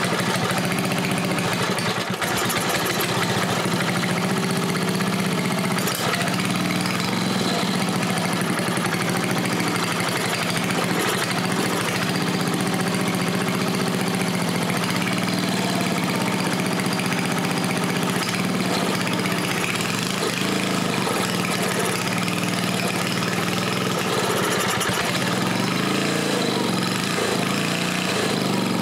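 Old 5 hp single-cylinder horizontal-shaft small engine running steadily on a bench test stand.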